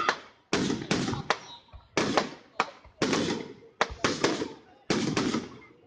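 Fireworks going off in a rapid string of sharp bangs, about two a second, each trailing off in an echoing rumble.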